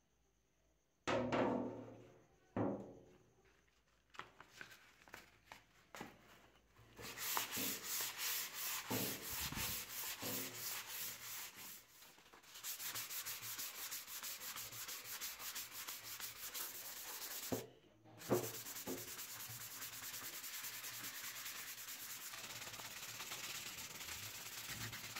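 Sandpaper rubbed by hand back and forth along a wooden axe handle in quick, even strokes, with two short pauses. A few knocks and scrapes of the handle come first.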